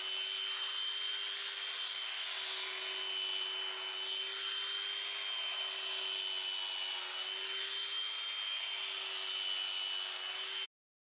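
Electric sheep shears running steadily as they clip through a sheep's fleece, a constant motor hum and high whine over a hiss of cutting. The sound cuts off suddenly near the end.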